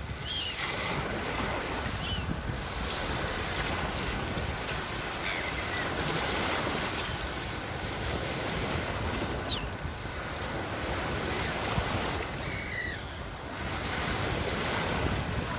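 Sea waves washing steadily onto the shore, with a few faint short chirps now and then.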